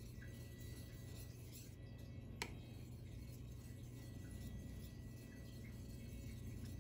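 Faint, repeated scraping of a steel blade being stroked back and forth on a wet Japanese natural sharpening stone, over a low steady hum, with one sharp click about two and a half seconds in.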